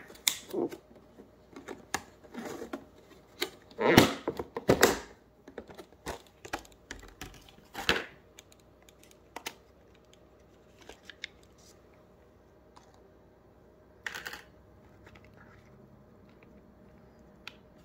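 Clear plastic clamshell food container being opened and handled: a run of irregular plastic clicks and crackles, loudest about four and eight seconds in, then a few scattered clicks.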